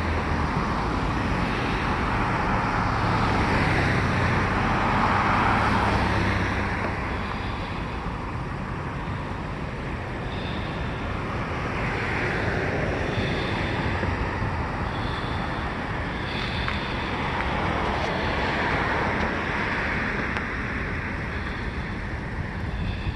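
Road traffic: cars passing one after another, each swelling and fading, over a steady low rumble, with a few faint short high tones in the middle.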